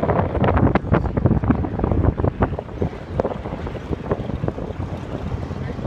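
Wind buffeting the microphone in irregular gusts over a low rumble, heaviest in the first few seconds.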